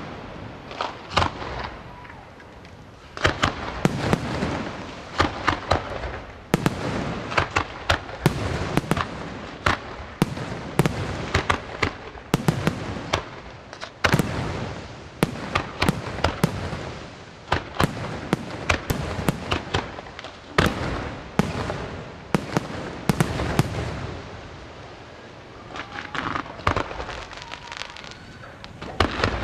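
Aerial fireworks shells bursting in quick succession, a dense run of sharp bangs and pops overhead. They thin out briefly about three-quarters of the way through, then pick up again.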